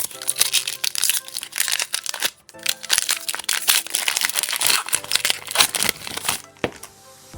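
Foil Pokémon booster pack wrapper crinkling and tearing as it is opened, in two loud stretches with a brief pause about two and a half seconds in.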